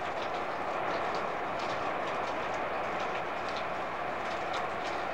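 A steady rushing roar of a tornado's wind, with scattered sharp ticks and crackles over it.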